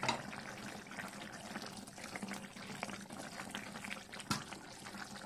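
Fish curry in coconut milk simmering in an open pan, a dense, irregular patter of small bubbles popping. A single click right at the start.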